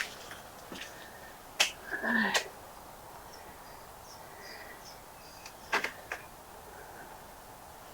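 A few sharp knocks and clicks, with a brief creak-like sound about two seconds in, over faint bird chirps.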